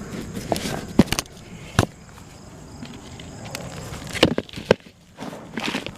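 Compost being dug through by hand, rustling and scraping, with about half a dozen sharp knocks.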